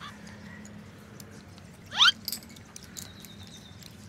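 A short animal call rising steeply in pitch about halfway through, followed by a few small clicks and a thin, steady high tone lasting about a second near the end.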